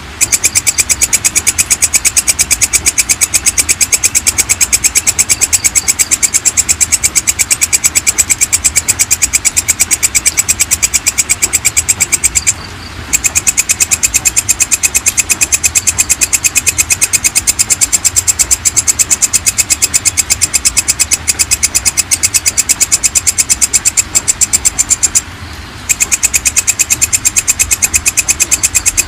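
Belalang kecek (walang kecek), a katydid, calling in a long, unbroken train of rapid, even, high-pitched chirping pulses. The call stops briefly twice, about 13 and 25 seconds in.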